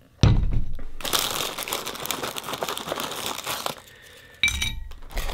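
Foil inner bag of a box of Shapes crackers crinkling as the crackers are shaken out, with a low thump as it starts and a clink on the plate about four seconds in.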